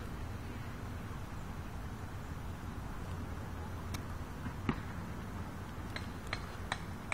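Steady low rumble of wind on the microphone, with a handful of small sharp clicks of the camera being handled from about four seconds in.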